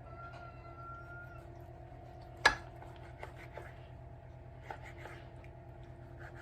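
Raw chicken breasts being pressed and arranged into a glass baking dish: one sharp knock about two and a half seconds in, then a few lighter taps, over a steady low hum.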